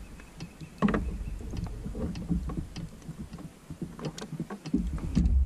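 Handling noise aboard a kayak while a freshly caught catfish is held up on the line: irregular clicks and knocks, with a louder knock about a second in, over a low wind rumble on the microphone.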